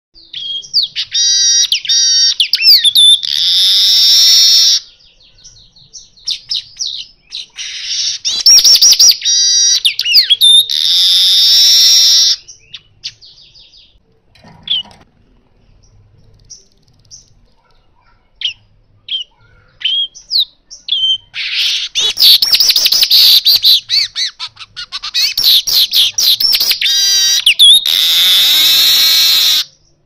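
Male manyar kepala emas (golden-headed weaver) singing in three bouts. Each bout is a rapid high chatter of trills that ends in a long hissing buzz, with a few short single chirps in the pauses between.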